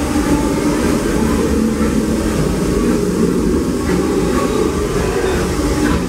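Disneyland Railroad steam train running, a steady loud rumble.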